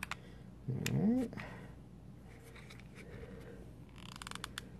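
Hot glue gun's trigger clicking in a quick run as it is squeezed near the end, pushing the glue stick through and laying glue onto a circuit board; a few single clicks earlier.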